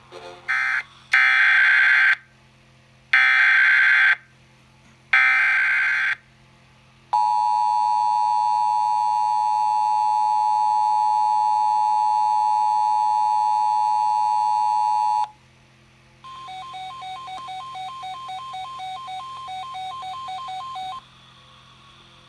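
Emergency Alert System tones: a short blip of digital data, then three one-second screeches of SAME header data about two seconds apart, then the steady two-tone attention signal held for about eight seconds. After a brief pause comes about five seconds of a rapidly pulsing alert tone.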